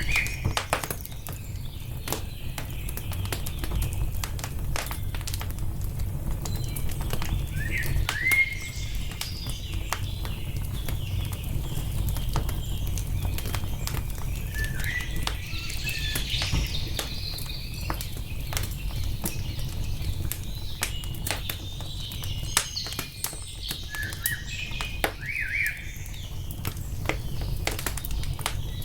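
Wood fire crackling, with frequent sharp pops over a steady low rumble. Songbirds chirp briefly several times.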